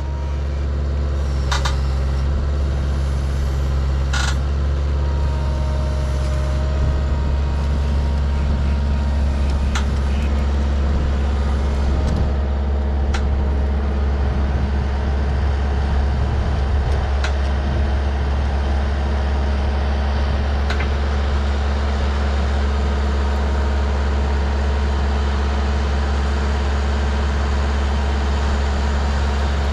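Skid steer engine running steadily at working speed, with a strong low drone throughout and a few short sharp clicks in the first ten seconds.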